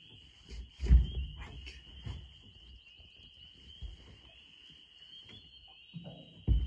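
A chorus of frogs calling as one steady high trill, with low thumps about a second in and near the end.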